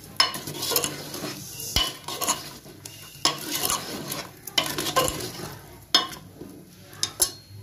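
A metal ladle scraping and clinking against the inside of a pressure cooker as brinjals in thick spiced tomato masala are stirred. Sharp knocks of the ladle come at uneven intervals, about once a second, over a sizzle of the masala frying in oil.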